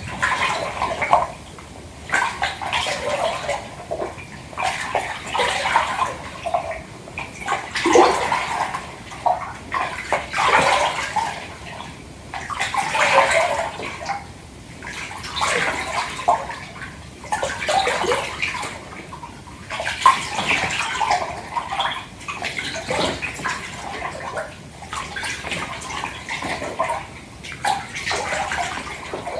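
Hands sloshing and swishing water in a filled bathtub, in uneven swells about every two seconds.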